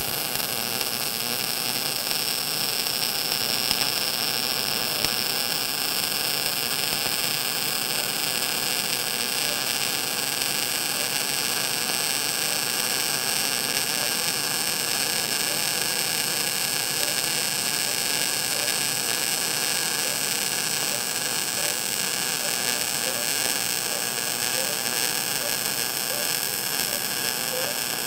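MIG (gas metal arc) welding arc, solid wire under 75% argon / 25% CO2 shielding gas in short-circuit transfer, crackling steadily and without a break as a fillet weld is run along a T joint.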